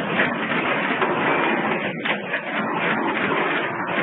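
Automatic through-hole component insertion machine for PCB assembly running: a steady, dense mechanical clatter and hum.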